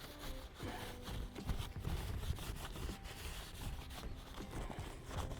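Irregular rubbing and scraping with soft knocks: hands working at polythene sheeting and grass.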